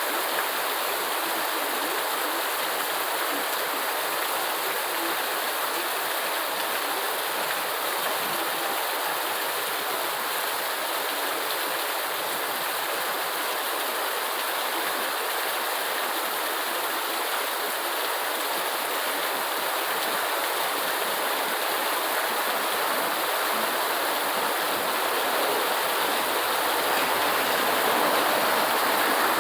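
Steady rainfall, a dense even hiss of water, swelling slightly louder near the end.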